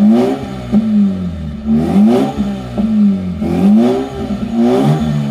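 Mazda RX-8's twin-rotor rotary engine revving in a series of throttle blips, about five in all. Each rev rises and falls back toward idle.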